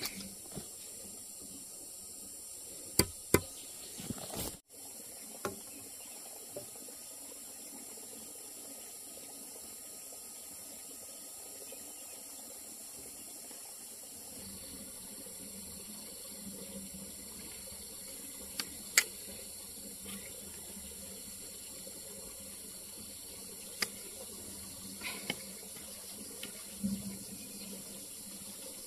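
Steady running water, with a few sharp knocks: two close together about three seconds in, and single ones later.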